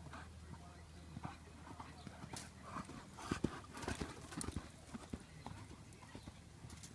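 Hoofbeats of a quarter horse mare moving on soft sandy arena ground, an irregular run of dull thuds that grows loudest about three to four and a half seconds in as she passes close.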